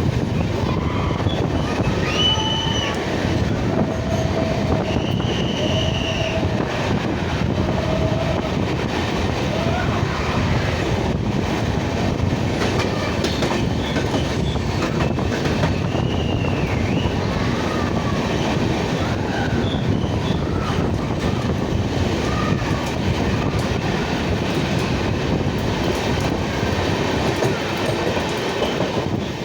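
Train running, a steady rumble with a few brief faint high squeals now and then.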